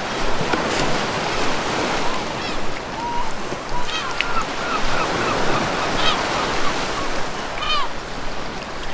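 Ocean waves breaking and washing steadily on a shore, with seagulls calling several times over them in short, arching cries.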